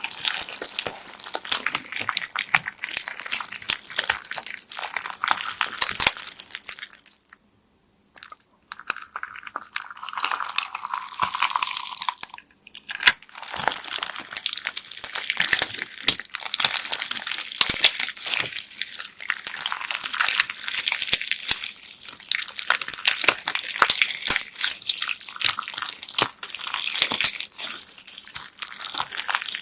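Slime packed with plastic beads being squished, pressed and poked by hand: dense wet crackling and clicking of the beads. The sound breaks off briefly about seven seconds in before the same kind of crackling resumes.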